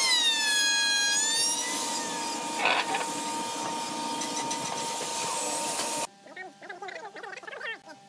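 Handheld electric router running with a high whine, its pitch sagging in the first second or two as the bit cuts the wood, with scraping from the cut. It cuts off abruptly about six seconds in, leaving faint short chirping sounds.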